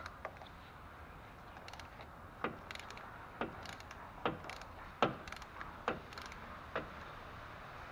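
Hand ratchet with a socket working a 10 mm hex plug on a transfer case: short runs of fine ratchet clicking about once a second, alternating with sharp metallic knocks of the tool against the fitting.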